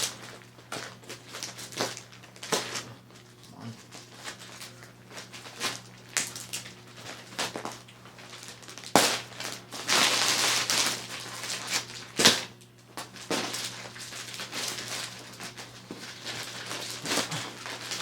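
Packaging being torn and worked open by hand: irregular crinkling, rustling and crushing, with a louder spell of rustling about ten seconds in and a few sharp snaps, over a faint steady hum.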